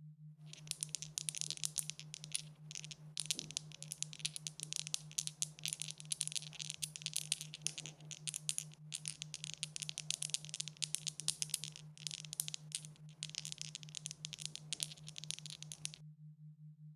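Dice rattling with dense, rapid clicking for about fifteen seconds, broken by brief pauses, over a steady low electrical hum.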